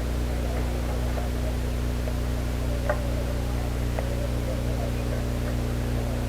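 Steady low hum under a hiss, with faint wavering tones and two faint sharp clicks, about three and four seconds in.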